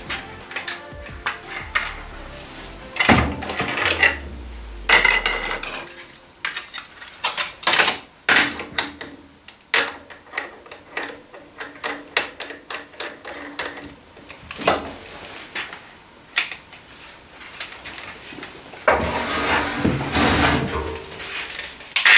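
Metal clanking and knocking, irregular and sharp, as hand tools work the sheet steel of a Ford GPW fender. A low tone falls away about four to six seconds in, and a loud scraping hiss comes near the end.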